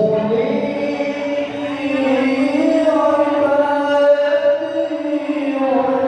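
A man reciting the Quran in the melodic qori (tilawah) style, amplified through a microphone and loudspeakers: long held notes that slowly rise and fall in ornamented glides.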